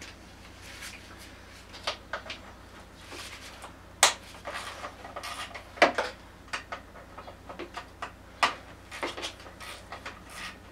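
Hand tools and small metal parts clinking and knocking against each other in irregular sharp clicks, the loudest about four, six and eight and a half seconds in, over a low steady hum.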